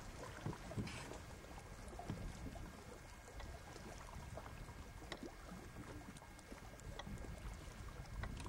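Water splashing and trickling in small scattered sounds around a small boat, over a low steady rumble.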